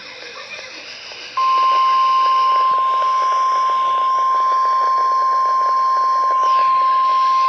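NOAA Weather Radio 1050 Hz warning alarm tone: after about a second and a half of faint radio hiss, a single loud, steady high tone comes on and holds. It is the alert signal that opens a (test) tornado warning.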